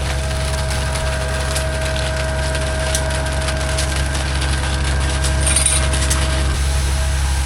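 Heavy diesel engine of a concrete pump truck running steadily, with a faint steady whine that stops near the end and a few light clicks and knocks.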